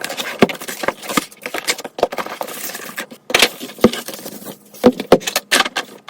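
Unboxing handling noise: a keyboard box and its packaging being opened and handled, with irregular clicks, knocks and rustling of cardboard and plastic.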